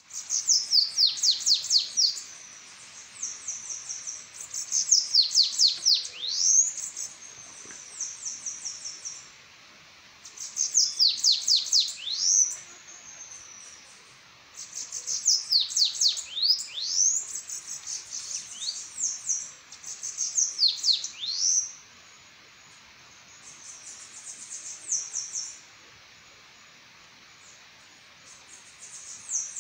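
Bananaquit (sibite) song, repeated every few seconds: each phrase is a quick run of high, sharp downward-sweeping notes with a short, fast, thin trill on top.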